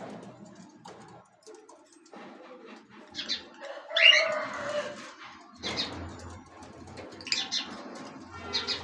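Caged birds chirping, with short high calls coming every second or two; the loudest is about four seconds in.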